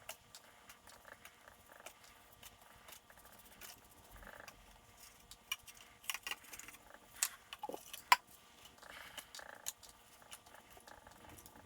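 Scattered light clicks and taps from hand work coating a furnace's ceramic-wool lining with rigidizer, with a few sharper clicks and a short falling squeak a little after the middle.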